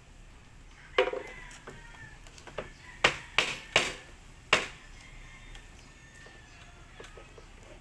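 A metal spoon clinking against a tin can: one knock about a second in, then four sharp clinks in quick succession around the middle.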